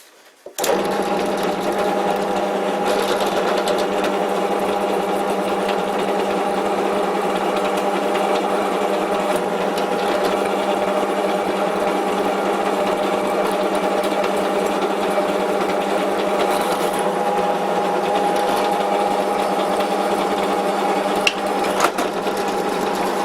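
Cheap benchtop drill press running steadily with a constant motor hum, drilling into a steel block held by a hold-down clamp. It starts about half a second in and stops abruptly near the end.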